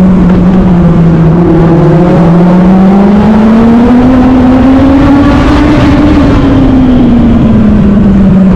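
Legends car's Yamaha four-cylinder motorcycle engine at racing speed, heard from onboard: the engine note climbs steadily for about five seconds as the car accelerates, then falls back as the driver lifts for the turn, over heavy wind rumble on the microphone.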